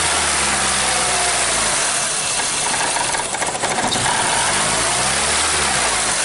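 Honda CR-V's four-cylinder engine running just after starting, steady at first, then with its engine speed sagging and rising again in the second half. It will only keep running on the accelerator and cuts out once the pedal is released, a crank-starts-then-stalls fault that the title ties to a P0341 cam/crank incorrect-phase code.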